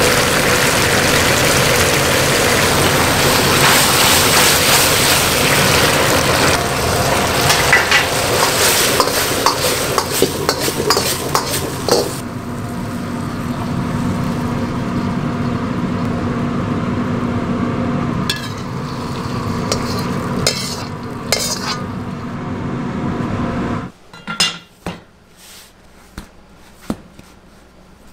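Commercial wok burner running hard under a carbon-steel wok while a metal ladle stirs sizzling chili sauce, with clacks of the ladle on the wok. About 12 s in it drops to a quieter steady kitchen hum with occasional scrapes and clinks of the ladle while the food is plated. About 24 s in the hum stops and only a few soft knocks on a plastic cutting board are left.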